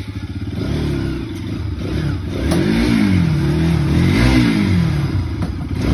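Bajaj Pulsar RS200's single-cylinder engine running just after being started, with two short revs that rise and fall, the first about three seconds in and the second a little over a second later.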